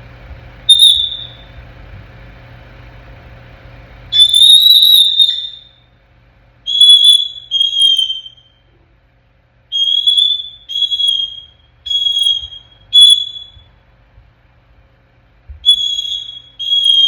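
African grey parrot whistling: a short whistle, a longer one about four seconds in, then a run of short whistles in pairs, all on about the same pitch.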